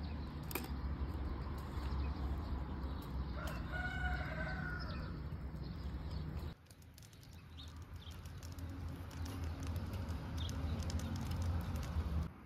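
A rooster crows once, a single call lasting about a second and a half, over a steady low rumble and scattered light clicks. The background drops abruptly about six and a half seconds in, then builds back up.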